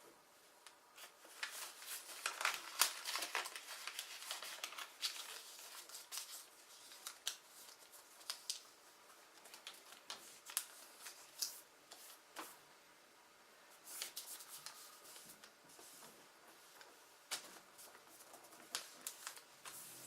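A sheet of paper being folded and creased by hand in origami: irregular rustling with many sharp crackles and snaps as folds are pressed flat.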